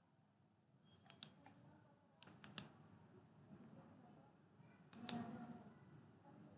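Faint, scattered clicks of a computer mouse and keyboard over near-silent room tone: a couple about a second in, a quick cluster around two and a half seconds, and one more near five seconds.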